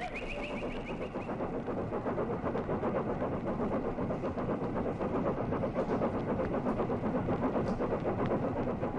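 Vehicle sound effect: an engine running with a fast, even rhythm, swelling over the first couple of seconds and then holding steady.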